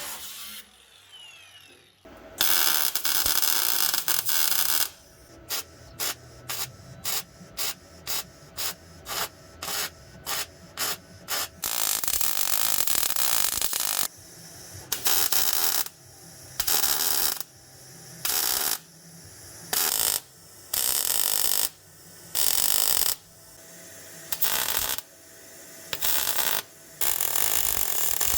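MIG welder laying welds on a new sheet-steel floor panel, the arc crackling in bursts: a few seconds of continuous welding, then a quick run of short tacks about two a second, then longer stitches of about a second each with short pauses between them.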